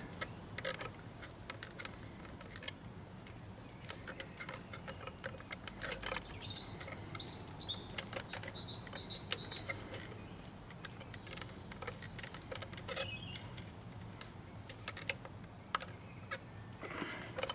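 Scattered small clicks and taps of fuel-filter pipes and plastic clips being handled and pushed into place, over a low steady hum. Birds chirp briefly a few times, about six to nine seconds in and again near the end.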